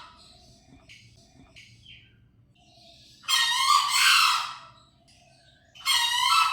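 Green junglefowl crowing: two loud, harsh, roughly one-second crows, one about three seconds in and another starting near the end, with faint short chirps between them.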